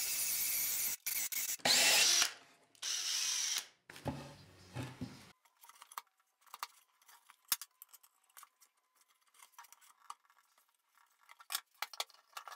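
Power drill boring a hole into plywood in several short bursts over the first four seconds or so. Quiet handling of the plywood follows, with scattered light clicks and taps.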